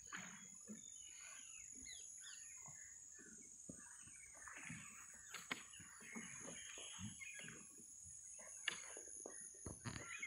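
Faint bird calls, many short chirps and trills, with a steady high-pitched hiss underneath. A few sharp knocks come through, the loudest a little before the end.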